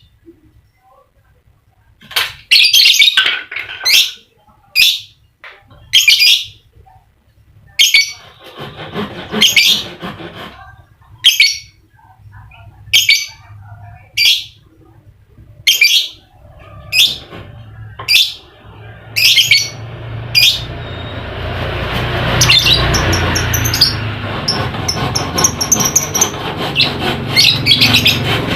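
Lovebird giving short, shrill calls, repeated about once a second. From about two-thirds of the way through, a steady rushing background noise with a low hum builds up under fainter high chirping.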